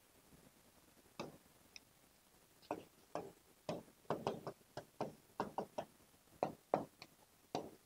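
Faint, irregular taps and clicks of a writing tool on a board, about fifteen of them, coming more often from about two and a half seconds in.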